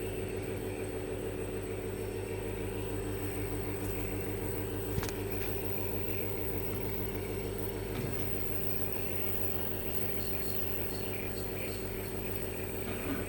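Steady electric motor hum, unchanging throughout, with a faint click about five seconds in.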